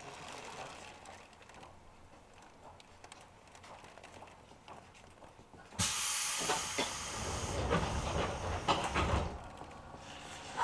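Pneumatic equipment of a JR 205-series electric commuter train standing at a station: quiet at first, then about six seconds in a sudden loud hiss of compressed air with several knocks, easing off near the end.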